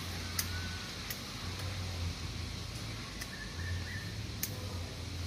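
Hand pruning shears, somewhat blunt from little use, snipping durian twigs and branches: about five sharp clicks a second or so apart. Beneath them are a steady hiss and a low hum that comes and goes.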